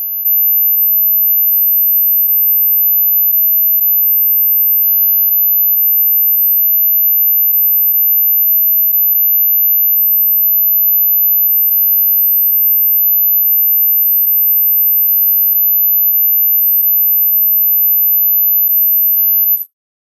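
Dog whistle tone: a single pure, very high-pitched note held steady, cutting off suddenly near the end.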